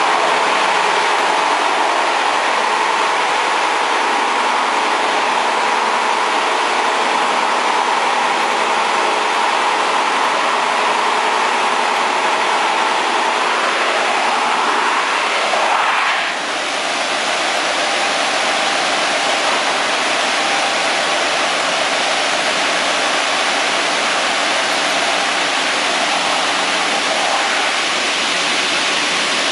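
Industrial wide-belt sanding machine running with a loud, steady noise. About halfway through, a short sliding tone is heard and the sound shifts to a flatter rushing noise.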